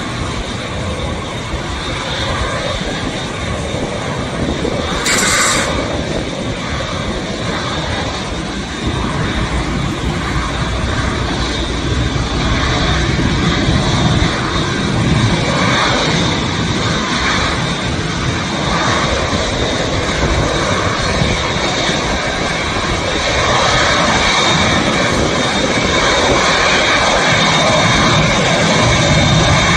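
Boeing 787 jet airliner's turbofan engines running, a steady rush of noise with a high whine, growing gradually louder. A short sharp hiss about five seconds in.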